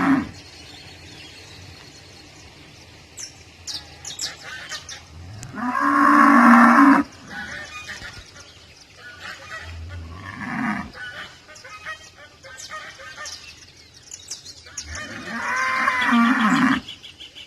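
A cow mooing three times in long, drawn-out calls: a loud one about six seconds in, a shorter, quieter one near ten seconds, and another long one near the end.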